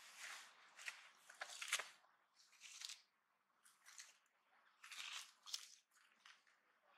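A long-tailed macaque biting and chewing a firm fruit: faint, irregular wet crunches and squishes, loudest at about a second and a half in and again around five seconds.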